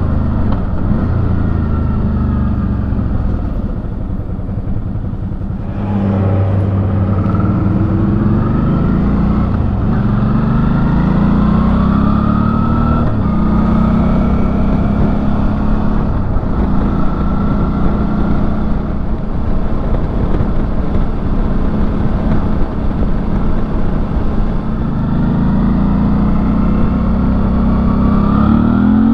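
Suzuki V-Strom 650's 645 cc V-twin engine pulling through the gears under way, heard from inside the rider's helmet. The engine pitch rises in several sweeps about six to fourteen seconds in, holds steadier after that, then climbs again near the end.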